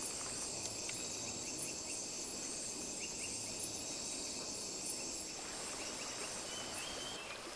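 Night chorus of crickets and other insects: a steady high-pitched trill with a regularly pulsing call above it, cutting off near the end.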